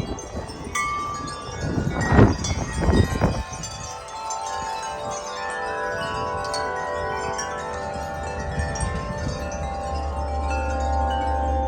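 Wind chime tubes ringing in the wind, with many overlapping notes that sustain and fade as new strikes come in. A few low rumbling gusts hit about two to three seconds in.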